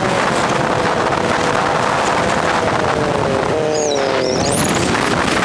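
Motorcycle riding, heard from a helmet-mounted camera in sped-up footage: heavy wind noise on the microphone over a raised-pitch engine note. About three and a half seconds in, the engine note drops and then climbs again.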